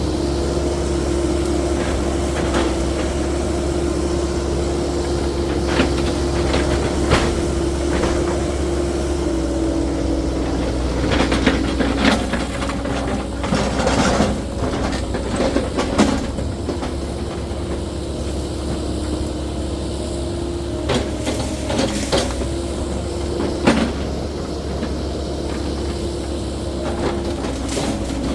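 CAT 308E2 mini excavator's diesel engine running steadily under working load, its pitch shifting slightly as the hydraulics are worked. Sharp clanks and knocks come in clusters about halfway through and again a few seconds later.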